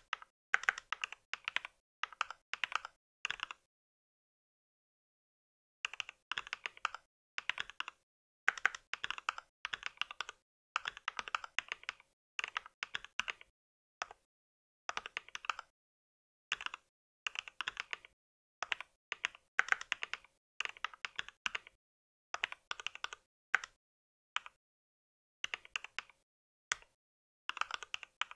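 Mechanical keyboard typing in quick runs of keystrokes, broken by short pauses, with one longer break of about two seconds a few seconds in.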